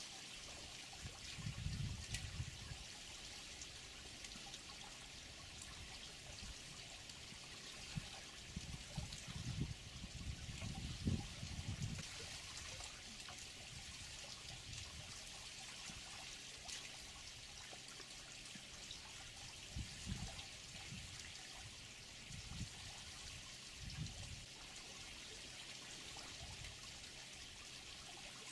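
Water trickling steadily into a waterhole, with a few low rumbles coming and going, loudest about ten seconds in.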